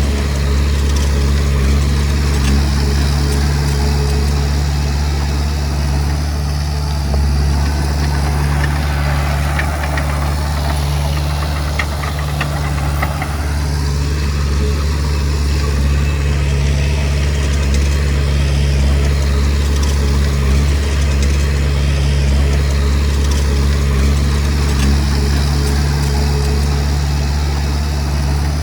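Heavy machine's diesel engine running steadily at an even pitch. A rise of rougher mid-range noise with a few faint clicks comes about eight to thirteen seconds in.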